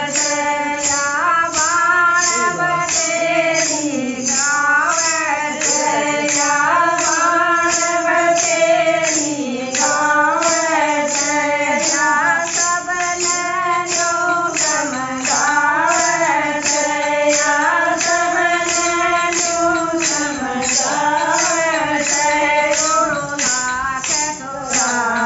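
Women singing a bhajan together to a steady beat of shaken jingles from hand-held plastic tambourine-style rattles and wooden clappers with metal jingles, about two strokes a second.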